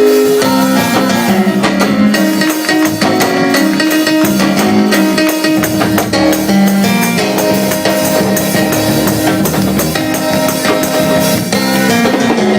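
Church band music with a steady beat: a drum kit played under guitar and sustained chord tones.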